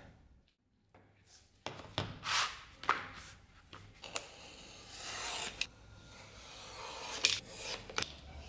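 Snap-off utility knife slicing through a sheet of leather, partly drawn along a steel ruler. After a quiet first second or so come a series of short scraping cuts with a few sharp clicks.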